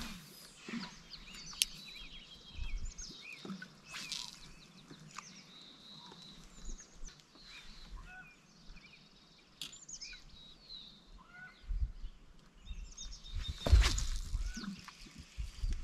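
Songbirds chirping and singing in many short, quick calls. Near the end a low rumble and a louder knock cut across them.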